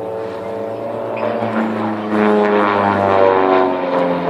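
Propeller aircraft flying past, its engine note growing louder and then sliding down in pitch as it passes.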